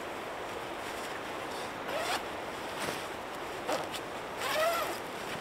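Nylon sleeping bag zipper being worked in several short raspy pulls, about one a second, starting about two seconds in.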